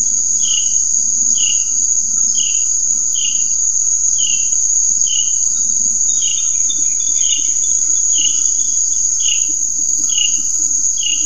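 Steady high-pitched insect trill, with a short falling chirp repeating a little more than once a second.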